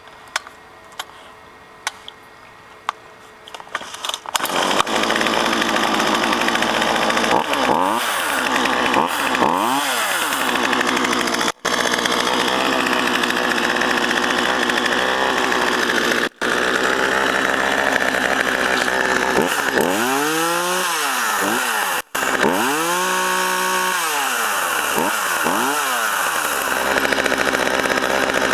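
Craftsman 42cc two-stroke chainsaw (Poulan-built) starting after a few clicks about four seconds in, then running with the throttle revved up and back down twice and, near the end, several more times in quick succession. The sound drops out for an instant three times.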